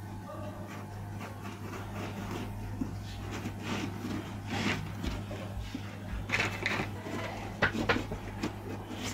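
Handling noises of objects being moved and set down, with scattered clicks and scrapes that come thicker in the middle and latter part, over a steady low hum.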